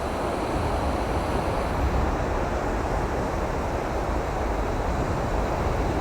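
Ocean surf washing in steadily, with wind buffeting the microphone as a low rumble.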